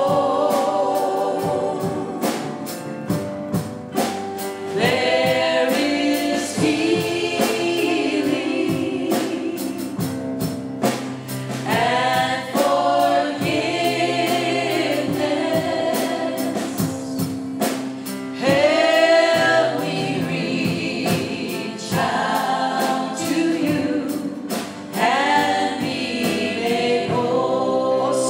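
Gospel choir singing a worship chorus over band accompaniment, voices holding long notes with vibrato over a steady beat.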